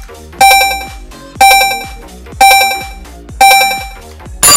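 Countdown timer beeps, a ringing chime once a second that fades after each strike, four in a row, then a louder, longer final ring near the end marking time up, over background music.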